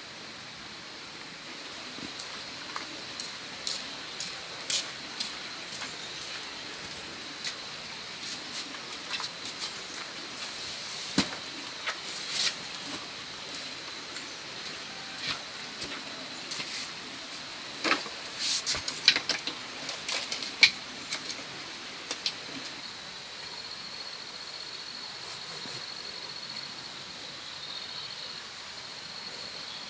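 Outdoor rural ambience with a faint high insect trill, broken by scattered sharp clicks and knocks of someone moving about and handling things, loudest and most frequent about two-thirds of the way through. Near the end a steady, high, rapidly pulsing insect trill comes in.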